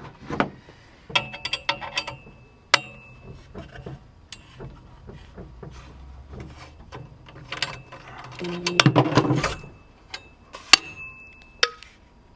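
Hand tools and BMX bike parts being worked by hand: scattered clicks, knocks and small metallic clinks, two of them ringing briefly, with a louder, longer scrape about nine seconds in.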